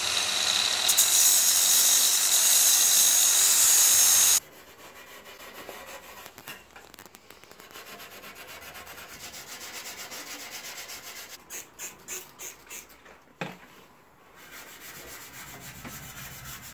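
A power tool's spinning abrasive disc grinding the bare steel front end of a Mk1 Volkswagen Golf, running with a steady high whine and stopping suddenly about four seconds in. Then a much quieter, scratchy scrubbing of wire wool rubbed by hand over the steel, with a few sharper strokes and a single knock near the end.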